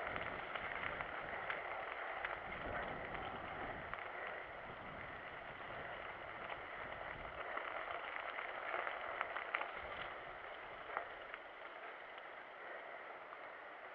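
Mountain bike rolling along a wet trail: a steady hiss of tyre and wind noise, with scattered small clicks and rattles.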